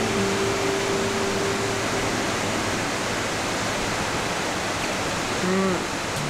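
Mountain valley stream rushing, an even, steady hiss of running water.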